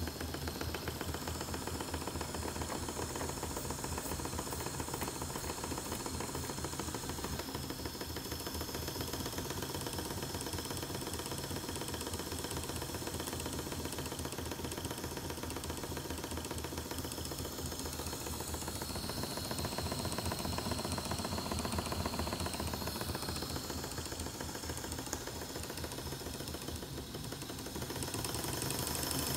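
Stuart 10V single-cylinder steam engine running steadily at speed, a rapid even beat of exhaust and working parts under a high hiss. It grows louder about twenty seconds in and again near the end.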